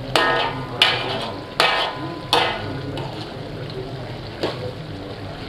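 A stirring spoon knocks against the cooking pot five times, each knock ringing briefly, over the steady sizzle of chicken korma frying.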